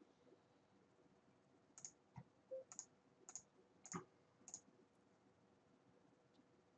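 A run of about six or seven quiet computer mouse clicks, roughly two a second, starting about two seconds in and stopping a little after the middle, over near silence.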